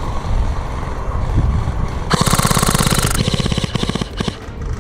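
Airsoft gun firing a rapid full-auto burst of about a second, followed by a few scattered shots.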